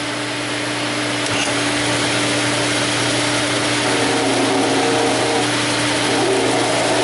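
A vacuum runs steadily over the hum of a drill press spinning a small drum sander. About four seconds in, a piece of acrylic is pressed against the spinning drum and sanded, adding a wavering grinding tone.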